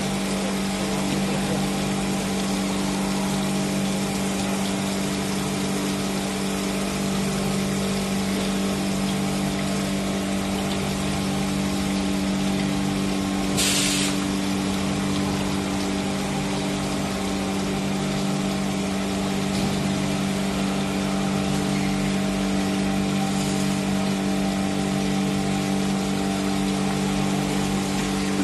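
CNC machining centre running, its spindle working a slab under a coolant spray: a steady machine hum with the hiss of spraying water. A short burst of hiss comes about 14 seconds in.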